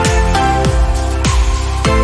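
Background music: a pop-electronic track with a deep kick-drum beat about every 0.6 s under sustained synth chords.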